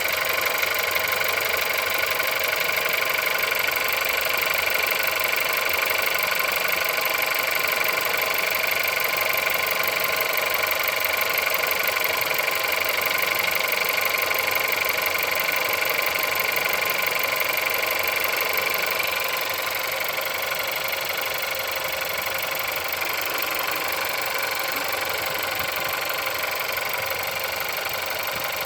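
Car engine idling after a cold start, with a knocking from inside the engine, at 176,000 km of mileage. It runs steadily and gets slightly quieter about two-thirds of the way through.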